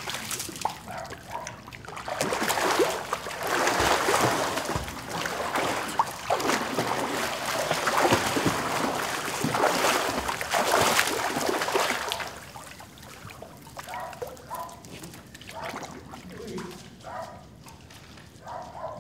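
Heavy, irregular splashing and sloshing of swimming-pool water as a person thrashes and struggles in it, as if drowning. The splashing dies down about twelve seconds in to faint lapping.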